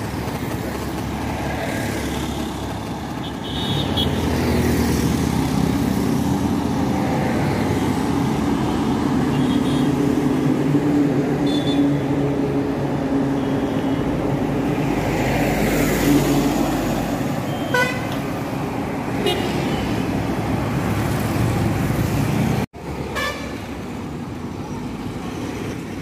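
Busy road traffic: passing vehicles' engines and tyres as a steady rumble, with car horns beeping briefly a few times in the second half. The sound cuts off abruptly near the end and starts again.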